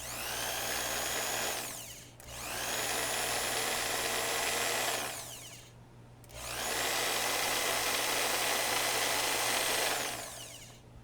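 Bauer 10 amp variable-speed portable band saw switched on and off three times, the motor whine rising as it spins up and falling as it winds down after each run. Its gearbox is freshly packed with wheel bearing grease to cure a growl, and it runs quieter.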